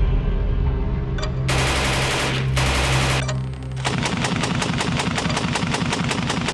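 SAR 762 MT 7.62 mm machine gun firing on automatic: short bursts early on, then a sustained burst of rapid, evenly spaced shots through the second half.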